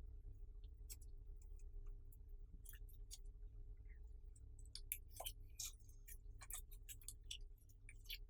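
Clear slime being worked by hand: faint, irregular sticky clicks and little pops as it is pressed and pulled, busier for a couple of seconds past the middle, over a low steady hum.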